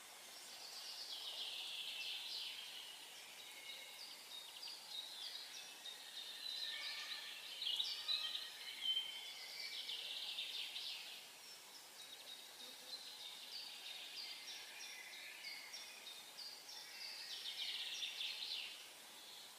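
Songbirds singing in the open: high chirps and trills in three stretches of several seconds each, over a faint steady hiss of background air.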